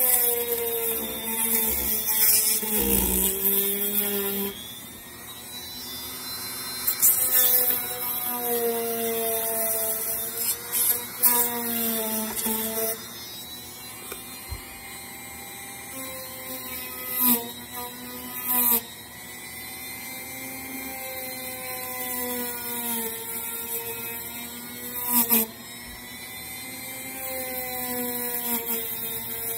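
Dremel rotary tool running with its bit carving into foam insulation board. The motor's pitch sags and recovers as the bit bites, with repeated short bursts of scratchy grinding as it digs into the foam.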